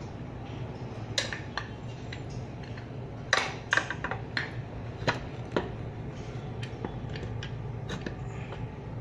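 Scattered light clicks and knocks of metal parts: an e-bike hub-motor wheel, with its brake disc, being manoeuvred by hand so its axle seats in the fork's dropout slots. Under them runs a steady low hum.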